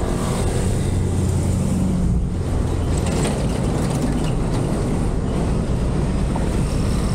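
Motorcycle engine running steadily on the move, mixed with wind and road noise.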